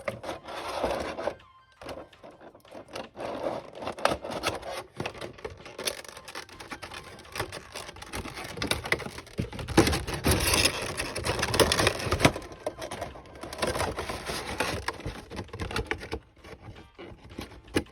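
A figure being handled and unpacked from its packaging: irregular rustling, scraping and clicking, busiest around the middle.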